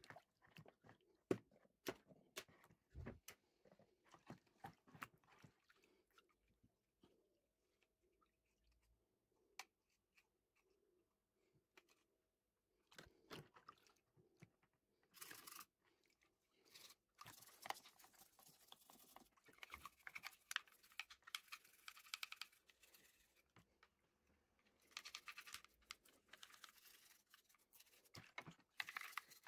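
Plastic car air-vent parts handled in a basin of water, with quiet clicks and knocks of plastic, then from about halfway stretches of scratchy toothbrush scrubbing on the plastic.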